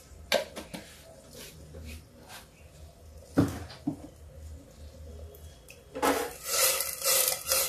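Kitchen handling sounds beside a pressure cooker: scattered light knocks and clinks of utensils and containers, with one sharper knock midway. Near the end comes a louder rushing noise lasting about a second and a half.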